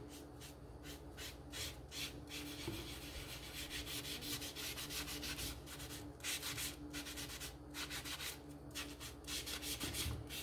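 Foam brush stroking wood stain onto a thin wooden frame: a quick run of soft scrubbing strokes, several a second, with brief pauses between runs.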